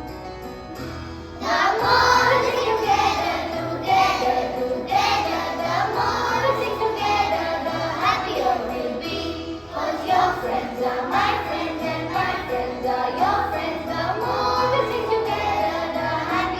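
Children singing a song about friendship to an instrumental accompaniment. The voices come in about a second and a half in, after a quieter instrumental opening.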